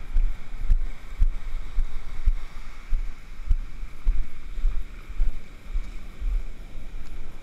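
Wind buffeting the camera's microphone in irregular low rumbles and thumps, over a steady hiss of surf washing up the beach.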